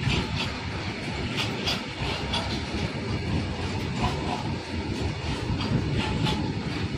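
A long rake of BCNHL covered goods wagons rolling past: a steady rumble of steel wheels on rail, with sharp wheel clicks and clatter coming irregularly, about one or two a second.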